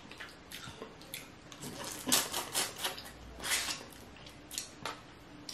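Boiled crawfish shells being cracked and peeled apart by hand, a string of small crackles and clicks that are busiest in the middle.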